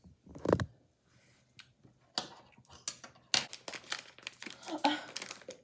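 Plastic food packaging being handled and crinkled, with quick irregular crackles. A brief low bump comes about half a second in.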